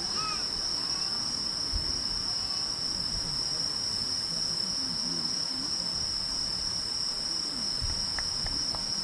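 Insects, most likely crickets, chirping in a continuous high-pitched trill. Two faint low thumps come about two seconds in and near the end.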